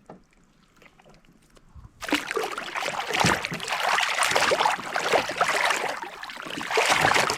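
Water sloshing and splashing close around a kayak, starting abruptly and loud about two seconds in after a near-quiet start.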